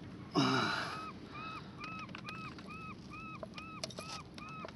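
A short, loud vocal exclamation falling in pitch. About a second in, a run of evenly spaced high squeaks follows, about two and a half a second, each a brief rise and fall, with faint clicks between them.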